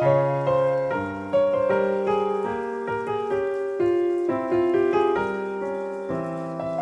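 Background piano music: a gentle melody of struck notes that ring and fade, with a bass line underneath.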